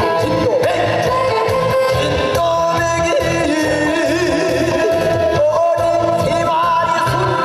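A man singing a song into a microphone, holding long wavering notes with vibrato, over backing music with a steady beat.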